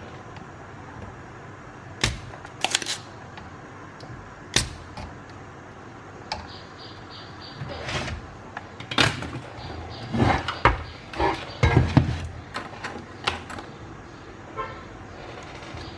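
Sharp snapping clicks of a spring-loaded desoldering pump being fired at the pins of a circuit-board IC, a few times in the first five seconds. Then a run of knocks and clatter around the middle to later part as the board is handled and turned over.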